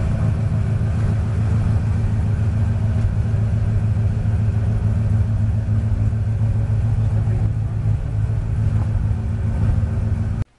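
1967 Ford Mustang's engine idling steadily, a low even rumble from the tailpipes.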